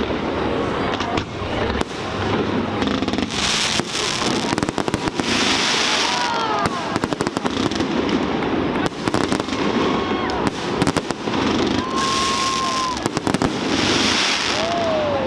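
Fireworks display going off: a dense run of sharp bangs and reports, with several hissing, crackling bursts and a few short whistling tones, some falling in pitch.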